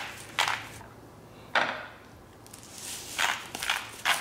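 Pink salt grinder being twisted by hand over meat, giving short grinding strokes: one near the start, another about a second and a half in, then a quick run of several strokes near the end.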